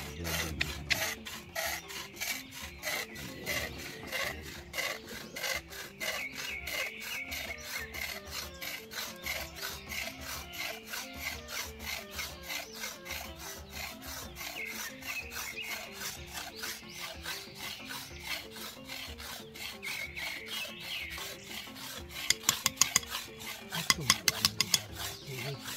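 A wooden stick being scraped by hand in quick, even rasping strokes that keep on without a break. A few sharp clicks come near the end.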